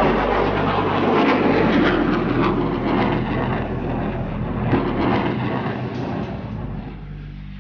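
SM-2 Standard surface-to-air missile's rocket motor roaring after launch, a loud rushing noise that fades steadily as the missile climbs away.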